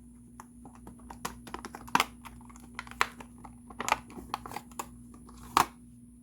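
Packaging of a new spark plug cable being opened by hand: irregular clicks, crinkles and rustles, with a few louder snaps about 2, 3, 4 and 5.5 seconds in.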